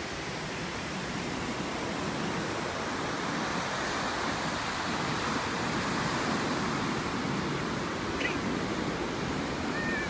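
Steady rush of ocean surf, slowly swelling in loudness.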